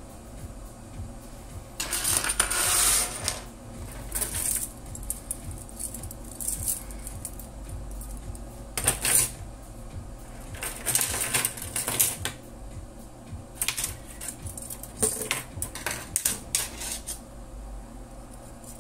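Clinking and scraping of a Fujitsu laptop's steel screen hinges being handled and worked, in irregular bursts of small metal clicks and rattles. The loudest clatter is about two seconds in and again near the middle.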